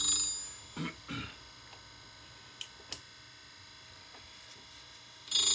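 A tool grinder's wheel grinding the tooth of an annular cutter: a high-pitched, metallic ringing screech that dies away just after the start and starts again about five seconds in. Two light clicks come about halfway through.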